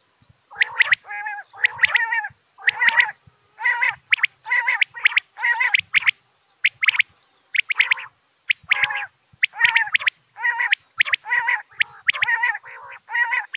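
Quail calling over and over, a short burst of quick notes about once a second with brief gaps between.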